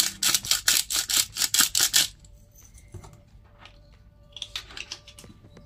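A small spice container worked by hand, clicking rapidly and evenly about five times a second, then stopping about two seconds in, followed by quieter handling with a few faint clicks near the end.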